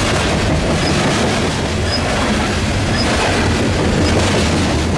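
CSX rapid-discharge coal hopper cars rolling past close by: a steady, loud rumble and clatter of steel wheels on rail.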